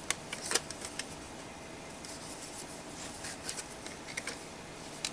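A toy helicopter's box being handled: a few faint, scattered clicks and rubs.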